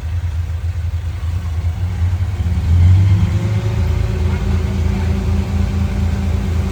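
Heavy construction machine's diesel engine running with a low, pulsing rumble. About three seconds in it gets louder and a steady whine comes in and holds.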